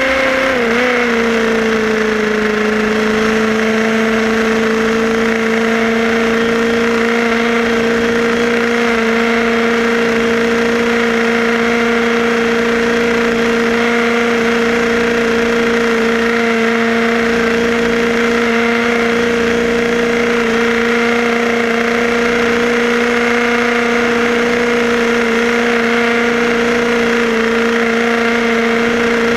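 HPI Baja 5B SS's small two-stroke petrol engine running at a steady pitch under the onboard camera, with a slight dip in pitch about a second in.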